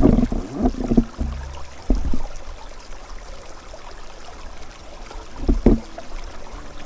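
Water splashing and trickling, broken by several loud, low thumps: a cluster in the first second, one near two seconds in and a double one at about five and a half seconds.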